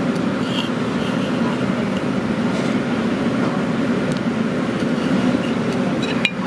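Steady, loud rumbling background din with a few faint clicks near the end.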